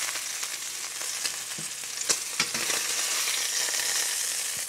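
Pork chops sizzling in hot olive oil in a stainless steel skillet as they brown: a steady high hiss, broken by a few sharp clicks of the metal tongs on the pan.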